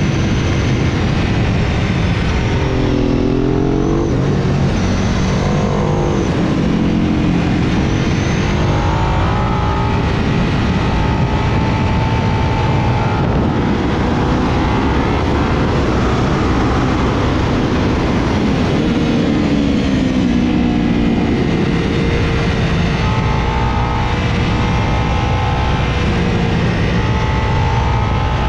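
Sportbike engine at track speed, its note rising and falling several times as the rider works the throttle through corners, under heavy wind rush on the microphone.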